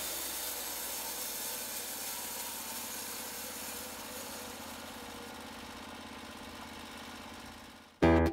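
Portable band sawmill's engine running steadily, slowly fading out. Guitar music cuts in near the very end.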